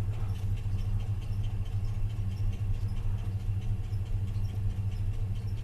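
A V8 engine idling steadily: an even low hum with faint light ticks over it.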